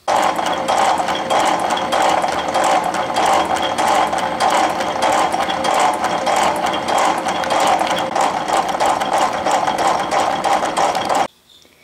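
Rhodes 7-inch metal shaper running, its ram stroking back and forth as the tool cuts the cast-aluminum workpiece: a steady mechanical clatter of rapid clicks that stops abruptly about a second before the end.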